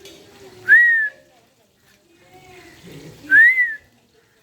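Parrot whistling two short notes about two and a half seconds apart, each a clear tone that rises and then falls.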